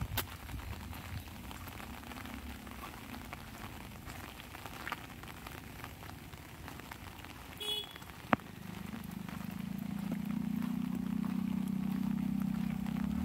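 Light rain pattering on an umbrella, with scattered drop taps and a single sharp tap just after eight seconds. From about nine seconds a low vehicle engine sound grows steadily louder as it approaches.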